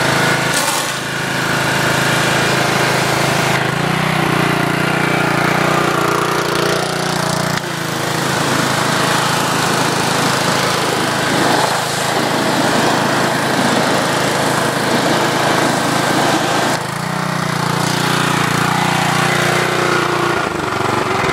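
Gas pressure washer running steadily on its Briggs & Stratton engine, with water hissing out of the spray wand; the engine note shifts a few times, about 4, 8 and 17 seconds in.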